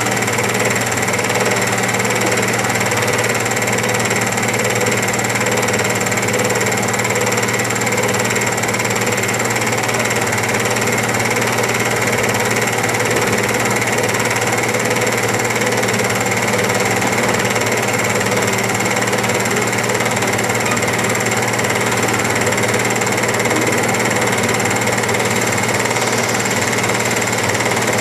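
Diesel engines of hydraulic crawler excavators running steadily under load, an even drone with no pauses.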